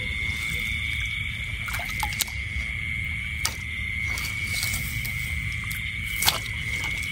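Steady, high-pitched chorus of night insects such as crickets, with a low rumble underneath and a few sharp clicks scattered through it.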